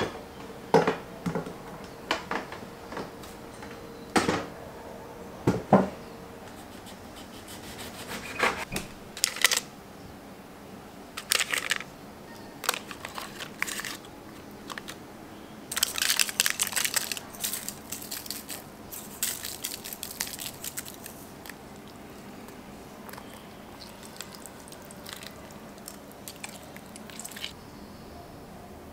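A ceramic slow-cooker crock and its lid being handled, with a few sharp knocks in the first few seconds. Parchment paper lining the crock then crinkles and rustles as a raw salmon fillet is laid in, with scattered small clicks and taps.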